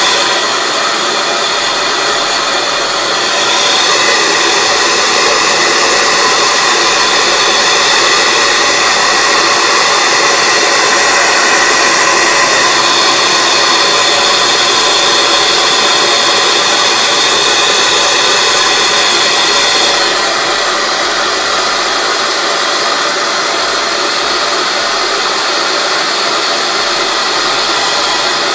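A Typhoon 1900 handheld hair dryer blowing steadily on wet hair, a loud, even rush of air and fan. It gets louder a few seconds in and drops back a little about two-thirds of the way through.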